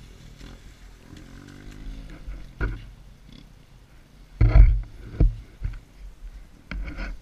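Dirt bike engines idling, with several short loud bursts like throttle blips.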